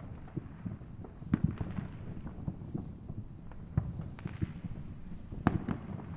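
Fireworks going off as a run of irregular pops and crackles over a low rumble, with a few sharper bangs standing out.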